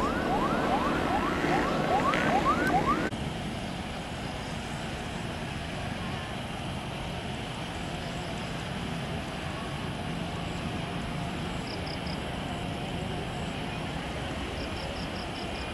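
A rapid wailing yelp of rising sweeps, about three a second, that cuts off abruptly about three seconds in. After that comes a steady, even rush of distant jet noise from an Airbus A320 on final approach.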